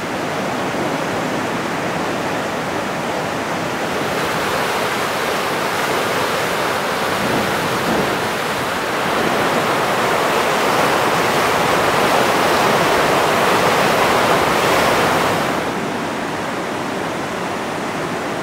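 Swollen floodwater of a river in spate rushing and churning with a steady noise, swelling louder through the middle and dropping back a few seconds before the end.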